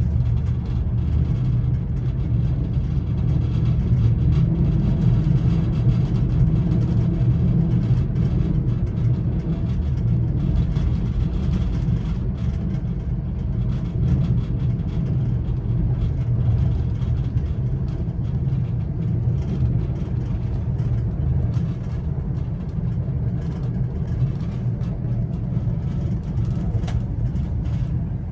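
Steady low rumble of a Czech Railways sleeper car running at speed, the rolling noise of wheels on rail heard from inside the closed compartment.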